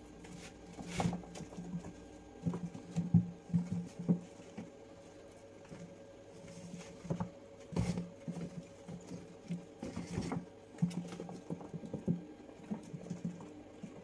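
Guinea pigs scurrying and scuffling over cage pads and against fabric tunnels and a wooden hideout, with many short, low calls repeated at an irregular pace and scattered clicks.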